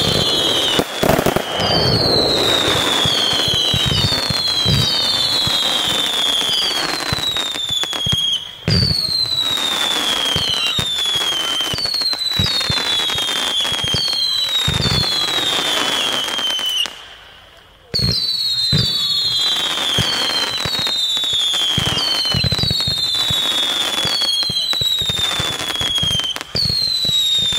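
Fireworks going off: a string of overlapping whistles, each falling in pitch over about a second, over steady crackling, with a few deep thuds. The sound drops away briefly about two-thirds of the way through, then resumes.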